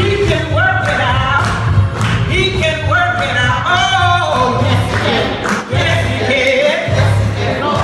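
Gospel choir singing, with a steady low accompaniment underneath.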